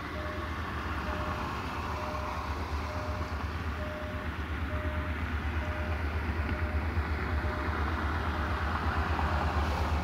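An approaching diesel-hauled passenger train, led by a GM-rebuilt CFR Class 65 locomotive: a low engine rumble with running noise that grows steadily louder as it nears.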